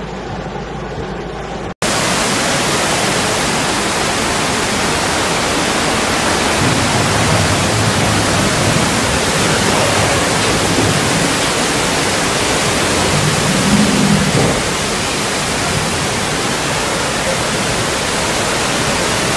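Heavy rain heard from inside a car. About two seconds in it cuts off suddenly, and a loud, steady rush of floodwater torrent takes over.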